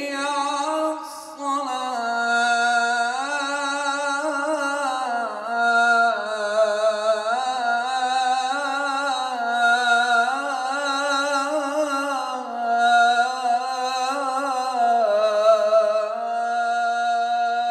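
A solo male voice chanting the adhan, the Islamic call to prayer, into a hand-held microphone: one long phrase drawn out and ornamented with wavering turns of pitch, with a short breath about a second in.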